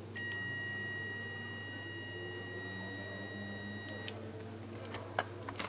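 Continuity buzzer of a DT9208A digital multimeter giving one steady, high-pitched beep for about four seconds: the probes are across a closed connection. A few sharp clicks follow near the end.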